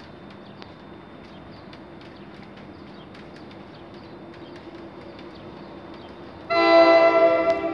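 An approaching electric locomotive sounds its multi-chime horn once, a loud chord held for about a second that starts near the end and then fades. Before it, only a faint steady background.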